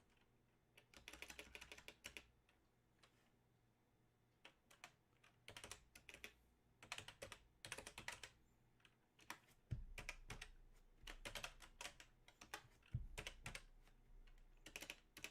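Computer keyboard typing, faint: short runs of keystrokes separated by pauses.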